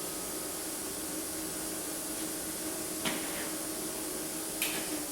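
Steady hiss with a faint low hum of machinery running in a garage workshop, with two brief light knocks, about three seconds in and again near the end.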